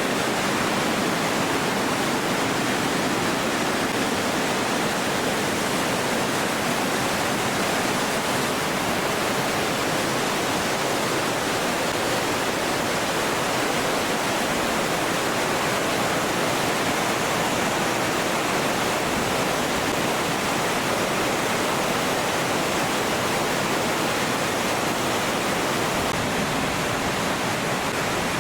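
Kings Creek Falls, a steady, loud rush of falling water.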